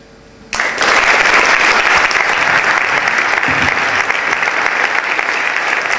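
An audience in a hall breaking into applause, starting suddenly about half a second in and continuing steadily.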